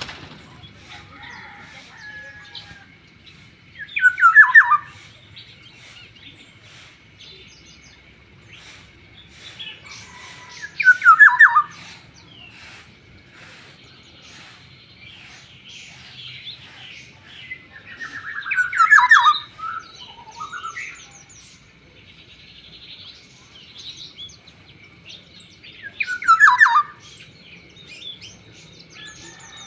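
Black-naped oriole (kepodang) calling: four loud calls, each about a second long and falling in pitch, spaced about seven seconds apart, with softer chirps between them.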